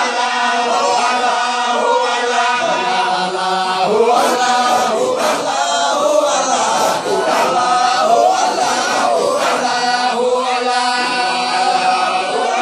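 A group of men chanting together in unison in Sufi devotional chant, holding long sung notes, with some hand clapping.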